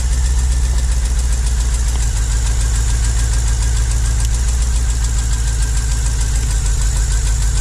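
Holden VE Commodore's 6.0 L V8 idling with a miss: cylinder seven is dead, its pushrod broken and its valve stuck closed so the cylinder has no compression.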